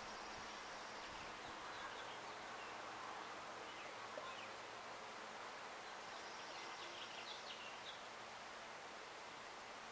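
Faint outdoor ambience with a steady hiss and small birds chirping in the background, with a burst of rapid high chirps about six to seven seconds in.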